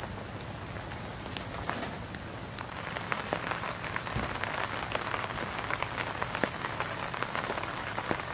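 Steady rain falling, with individual drops striking close by, more of them from about three seconds in, as drops hit the fabric of a pop-up canopy overhead.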